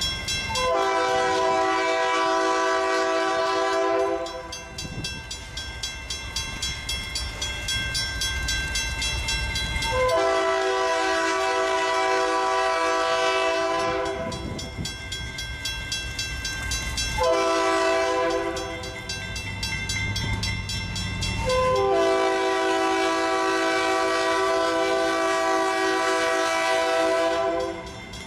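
Norfolk Southern freight train's diesel locomotive horn sounding the grade-crossing signal, long, long, short, long, as the locomotives reach the crossing. A crossing signal bell dings steadily underneath, along with the low rumble of the locomotives.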